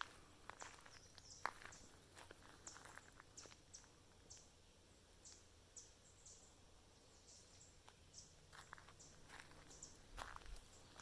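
Faint outdoor ambience: short high chirps repeating about twice a second, with a few soft footsteps on the trail near the start and again near the end.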